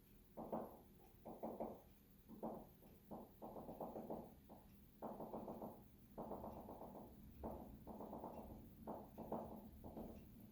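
A window making a popping noise over and over, in irregular bursts each lasting well under a second to about a second.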